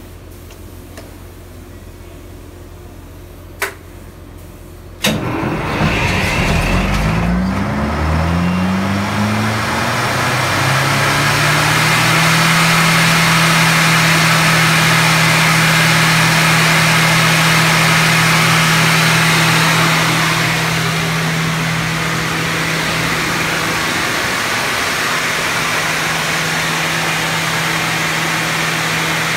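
Overhauled ACE 600-1 unit started from its control panel. A switch clicks once, and a little later the engine fires with a sudden loud start. Its pitch rises over several seconds to a steady running speed, and the sound eases slightly about twenty seconds in.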